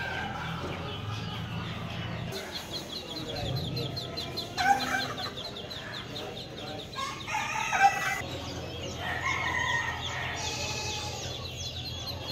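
Chickens calling: a rooster crowing and hens clucking, over a fast, even run of high chirps, with two louder calls about three seconds apart.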